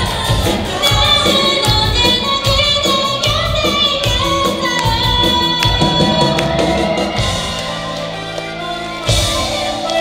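A student pop-rock band playing live: three girls' voices sing together over keyboard, electric guitar, bass and drum kit. The drumbeat thins out for a couple of seconds late on, then comes back with a cymbal crash about a second before the end.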